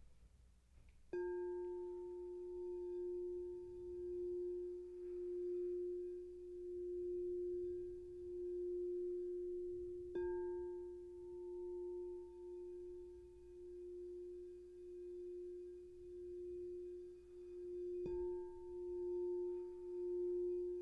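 Crystal singing bowl struck three times, about eight seconds apart, each strike renewing one steady low ringing tone with fainter higher overtones. The ring swells and fades in a slow, regular pulse.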